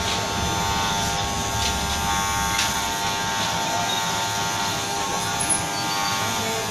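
Electric hair clipper buzzing steadily as it trims the hair on the back of a man's neck and head.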